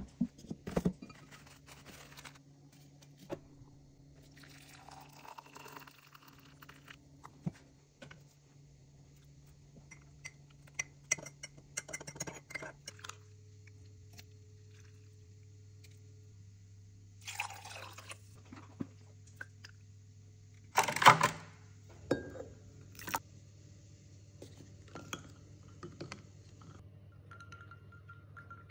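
Kitchen glassware and a spoon clinking as cubes of coffee jelly are spooned into a drinking glass, with a short pour of liquid and scattered knocks of glass on a counter. The loudest sound is a sharp clatter about two-thirds of the way through.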